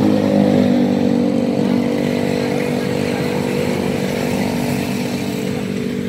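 Large coach's diesel engine running steadily, its pitch easing slightly down.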